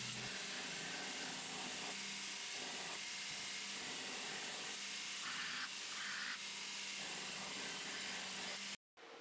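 Belt grinder running, with a steady hiss as the edge of a forged steel blade is ground against the abrasive belt and a steady motor hum underneath. The sound cuts off abruptly near the end.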